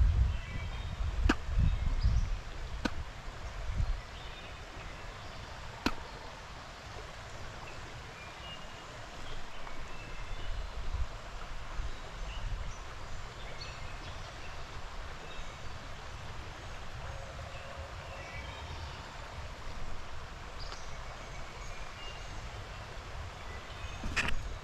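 Stream ambience: the steady rush of a small creek with birds chirping throughout. A low rumble on the microphone in the first few seconds, and a few sharp clicks.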